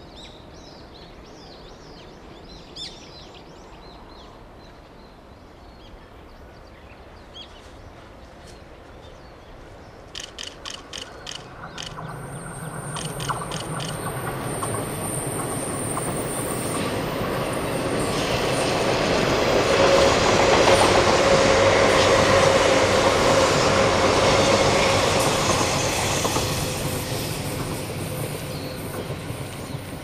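A train approaching along the line and passing. It starts with a quick run of clicks about ten seconds in, then a rising rush of wheels on rail with a steady whine. It is loudest a little past the middle and fades away near the end.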